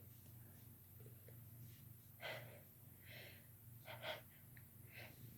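Several faint, short gasping breaths from a woman, starting about two seconds in: the catching inhalations that build up to a sneeze.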